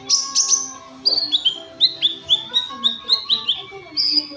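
Sunbird (kolibri ninja) singing a rapid series of sharp chirps, each sliding down in pitch, about four a second; about a second in, the chirps shift to a slightly lower-pitched run.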